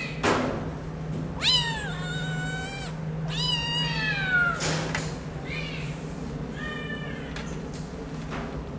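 Kittens meowing: two long, high meows that fall in pitch, about a second and a half and three and a half seconds in, then a few shorter, fainter meows. A sharp tap comes just before the first meow.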